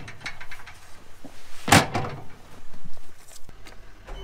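Cat skid steer's front cab door shut with one loud clunk about two seconds in, among smaller knocks and clicks of climbing into the cab.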